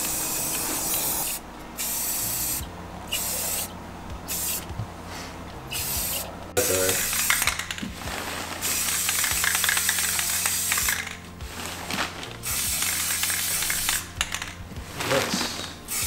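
Aerosol spray-paint cans spraying onto wheel rims. The hiss comes in a series of bursts: short ones with brief gaps over the first several seconds, then longer passes lasting a few seconds each.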